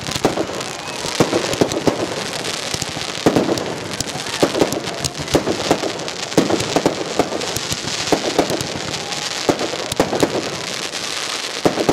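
Aerial fireworks launching and bursting, a rapid, uneven series of bangs over a dense crackling hiss.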